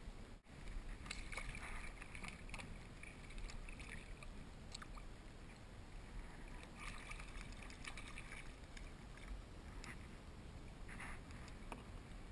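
Water lapping and sloshing against a plastic kayak hull in short irregular patches, with small knocks and ticks, over a low steady rumble.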